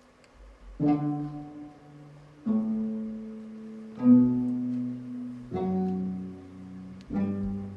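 Slow instrumental opening on Korean traditional string instruments: five low notes struck or plucked about every second and a half, each ringing on under a held bowed tone.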